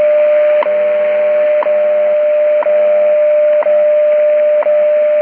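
WWV time signal received on 5 MHz shortwave through a Tecsun PL-600 portable radio: a steady standard audio tone with a seconds tick once a second, the tone briefly cutting out at each tick, over a hiss of shortwave static.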